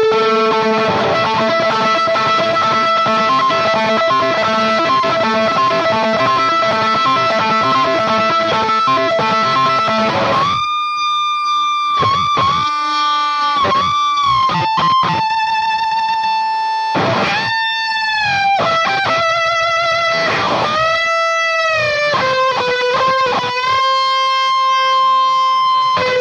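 Electric guitar lead played through a Marshall amp boosted by an MXR Micro Amp, with crunchy distortion. Sustained notes ring for about ten seconds, then the playing breaks into shorter phrases with string bends and vibrato.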